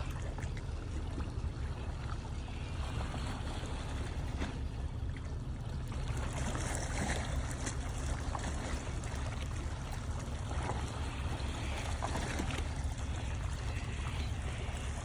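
Harbour water lapping and splashing against the rocky shoreline, with small irregular splashes over a steady low rumble.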